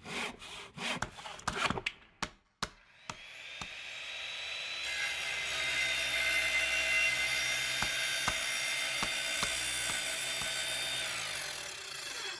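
A quick run of knocks and scraping, then a power tool's motor spinning up about three seconds in and running steadily, easing off near the end.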